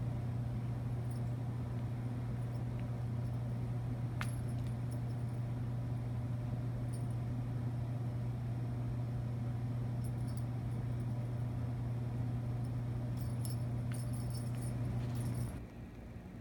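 A steady low electrical hum, with faint light jingles now and then. The hum cuts off about a second before the end.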